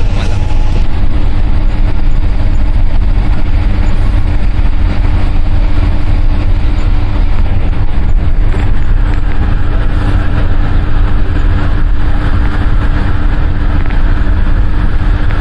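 Steady, loud rumble of a moving road vehicle heard from on board, with a constant low drone underneath.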